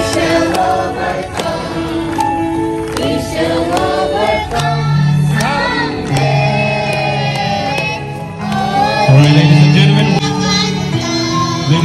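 A choir singing with instrumental backing, with held bass notes coming in partway through.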